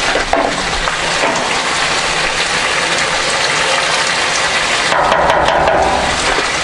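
Pilaf rice and liquid boiling in a kazan over a wood fire: steady bubbling.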